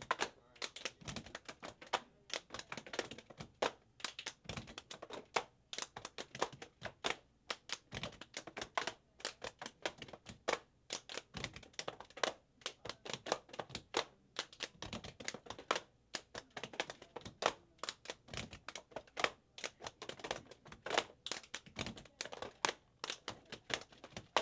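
Plastic pipette tip boxes knocked and tapped on a lab bench by several gloved hands, a rapid, uneven clatter of sharp knocks, several a second, mixed with claps of gloved hands.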